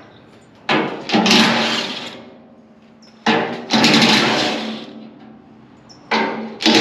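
Cordless impact driver run in three bursts of a second or two each, rattling as it loosens bolts on the chipper's steel housing. Each burst starts sharply and fades away.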